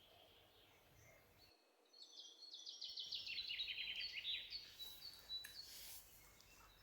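A songbird singing faintly in the background: a quick run of short repeated high notes that step down in pitch, ending in a few higher notes.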